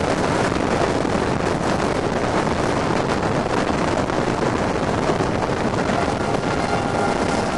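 Wind rushing over a microphone held out of a moving train's window, over the steady running noise of the train. A faint high whine joins near the end.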